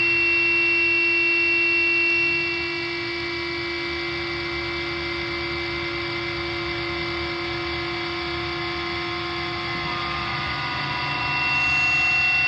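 Drone music of steady, overlapping sustained tones over a low rumble. The highest tones fade out about two seconds in, leaving it quieter, and swell back in near the end.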